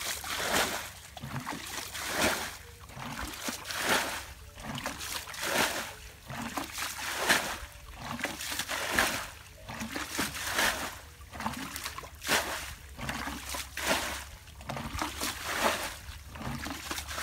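Wet squelching and rustling as a plucked bird's carcass is gutted by hand in a wicker basket, in a string of short bursts every second or two; near the end, water is scooped from a bucket.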